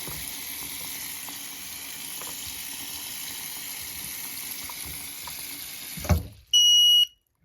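Water running steadily from a tap into a sink, then a knock about six seconds in, followed by one short, loud, high beep from a waterlogged Kidde KN-COSM-IBA smoke/CO alarm that sounds horrible.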